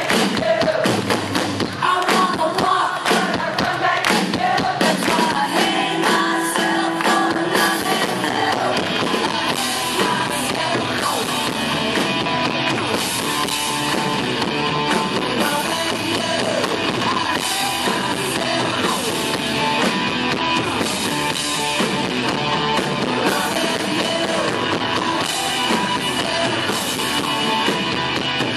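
Live rock band playing loud: electric guitars, a drum kit and a lead vocal, heard from among the audience.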